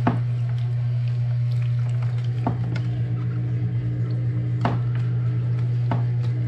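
A spoon stirring seasoned chicken feet, with a few sharp clinks against the container, over a loud, steady low hum.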